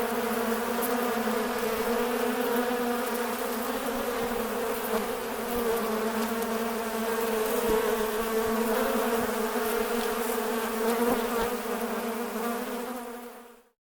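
A swarm of wasps buzzing in a steady, wavering drone that fades out near the end.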